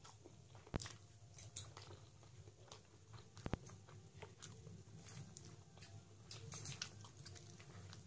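Close-up chewing and soft wet mouth sounds of a person eating rice, egg and mutton curry by hand, with scattered small clicks as the fingers work the rice on the plate. Two sharper ticks stand out, about a second in and midway.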